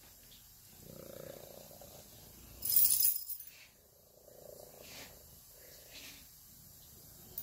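Tortoiseshell kitten purring loudly, the purr coming in swells. About three seconds in there is a brief, louder rush of noise.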